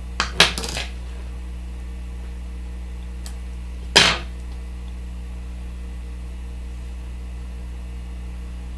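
A few light clicks, then one sharp metallic clink about four seconds in, from small items handled at a fly-tying bench, over a steady electrical hum.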